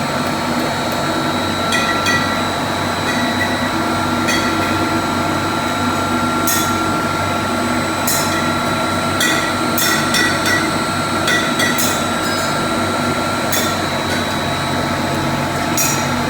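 Electric pump motor running with a steady, loud hum made of several fixed tones, with about a dozen sharp metallic taps or clicks scattered irregularly over it.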